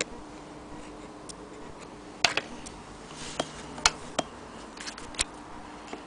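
Irregular sharp clicks and light knocks of metal parts on an antique Jones hand-crank sewing machine as its bobbin winder and hand wheel are handled, about six in a few seconds, with no steady cranking rhythm.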